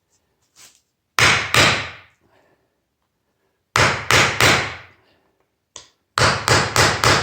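Hammer blows on the metal parts of a hydraulic door closer, struck in quick groups: two, then three, then four, each ringing briefly.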